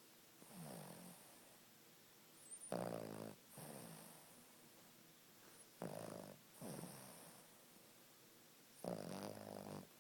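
Sleeping dog snoring: a faint first snore, then three louder snores about every three seconds, each a pitched rasping in-breath followed by a softer out-breath.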